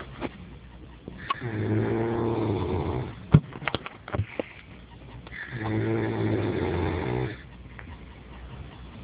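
A man snoring loudly in his sleep: two long, buzzing snores about four seconds apart. Between them come a few sharp clicks or knocks, the loudest of them a single sharp crack.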